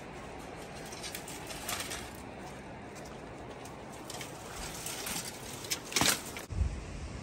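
Dry brushwood and twigs rustling and crackling as they are handled, in short scattered bursts, the loudest near the end.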